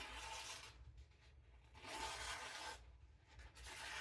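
Victorinox Chinese cleaver edge slicing through single-ply paper: three soft slicing strokes, each about a second long. The freshly sharpened edge cuts the thin paper cleanly.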